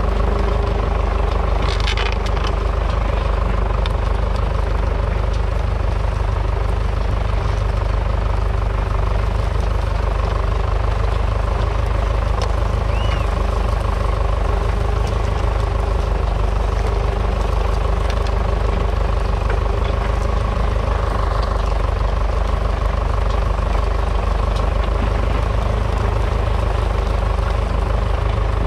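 1959 Fordson Power Major's 3.6-litre four-cylinder diesel engine running steadily under load as the tractor pulls a three-furrow mounted plough through the soil.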